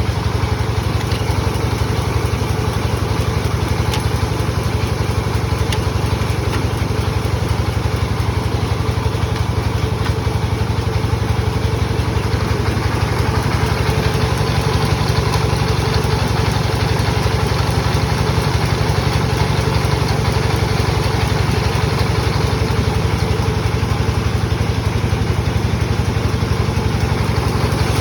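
Sawmill machine saw running steadily, its motor giving an even, low, engine-like pulsing hum with a rushing noise above it.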